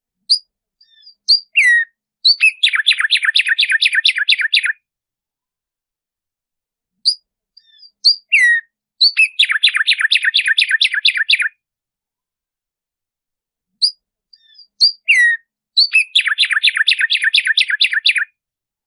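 Black-striped sparrow (tumba yegua) singing, three times over: each song opens with a few scattered high notes and a downward-slurred note, then breaks into a fast run of repeated notes lasting about two seconds. There are silent gaps of a few seconds between the songs.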